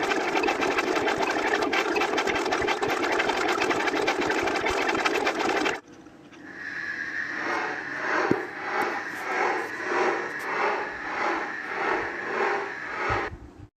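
Sound effects: a steady, engine-like mechanical roar that cuts off suddenly about six seconds in, then a different machine-like sound fades in and pulses about one and a half times a second, stopping abruptly near the end.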